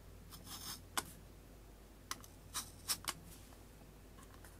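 Utility knife blade scratching into the back of a tablet's metal case: several short faint scrapes, with a couple of sharp clicks between them.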